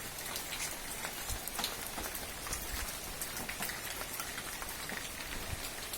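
Heavy rain falling steadily, with many individual drops landing as scattered sharp ticks.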